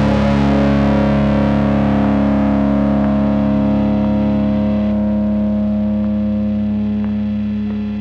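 Final chord of a rock song: a distorted electric guitar chord with effects, held and ringing out, slowly fading.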